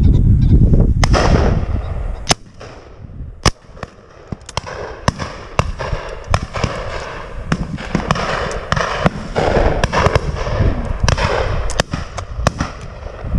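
Shotgun fire on a driven pheasant shoot: many shots from the line of guns, some close and loud, such as two sharp reports about two and three and a half seconds in, and many fainter, more distant ones in quick succession. A low rumble of wind on the microphone fills the first two seconds.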